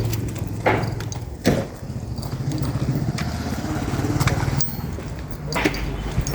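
A motor running nearby with a steady low hum that swells in the middle and eases off about four and a half seconds in, with a few sharp knocks on top.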